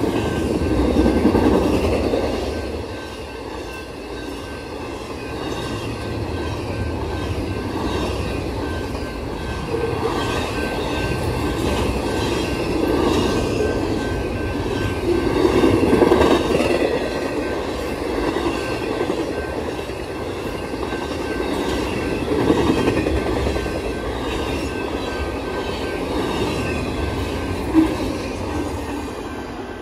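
Double-stack intermodal freight cars rolling past at close range, steel wheels clattering over the rails, with a steady high-pitched tone over the rumble. The sound swells and eases as the cars go by, with one sharp knock near the end.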